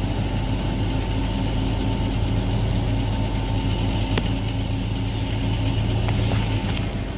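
City transit bus engine running steadily, a low hum heard from inside the passenger cabin, with a few sharp clicks and rattles from the bus partway through.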